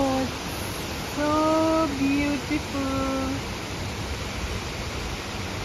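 Steady rain falling, an even hiss throughout. Over it come three short vocal cries held on a steady pitch, about a second in, at two seconds and at three seconds.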